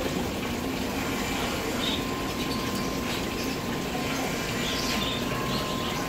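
Steady bubbling of an aquarium's air-driven sponge filter, an even watery hiss with no breaks.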